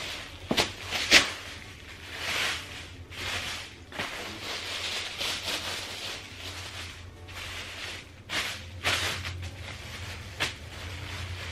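Thin plastic carrier bags rustling and crinkling as they are shaken out and folded by hand, in irregular swishes with a couple of sharp crackles about a second in. A faint steady low hum runs underneath.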